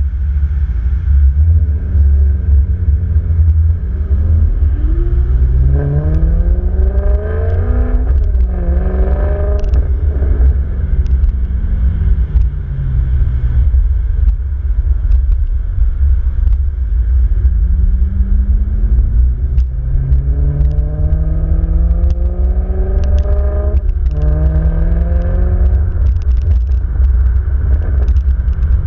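Ferrari sports-car engines accelerating in a convoy, their pitch rising through the gears. There are two runs of acceleration, each with an upshift: the pitch drops about eight seconds in and again near twenty-four seconds. A heavy, steady low rumble of wind and road noise runs underneath.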